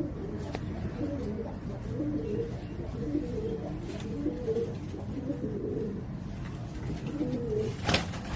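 Domestic pigeons cooing, low warbling coos following one another and overlapping, over a steady low hum. A sharp click near the end.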